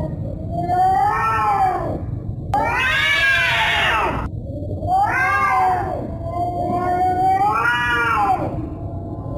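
Domestic cat yowling: four long, drawn-out calls that rise and fall in pitch, the second starting and stopping abruptly, over a low steady rumble.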